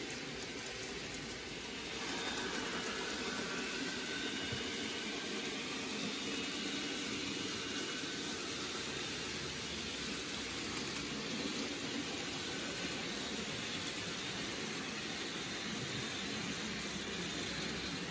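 N gauge model train running on the layout track: a steady whirring hiss of small wheels and motor, with a faint whine, getting a little louder about two seconds in.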